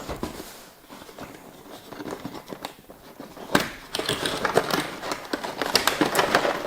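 Plastic packaging crinkling and rustling as boxed game pieces are handled, with small clicks. It is sparse at first and becomes louder and denser about halfway through.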